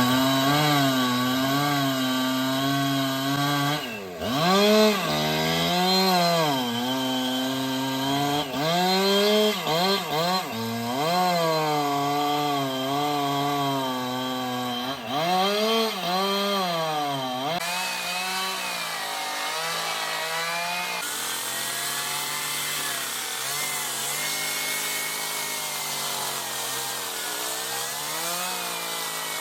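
Two-stroke chainsaw cutting wood in carving work, its engine pitch sagging under load and climbing again cut after cut, with deep dips about 4 and 15 seconds in. In the last part it runs steadier and softer.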